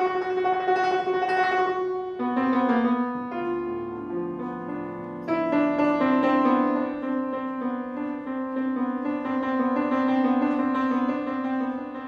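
Instrumental background music on a keyboard instrument: slow, held notes and chords that change every second or two.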